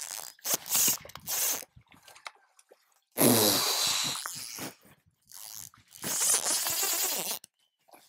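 Fly reel's drag buzzing as a hooked trout runs and strips line off it, down to the backing: a few short bursts, then two longer runs of a few seconds each.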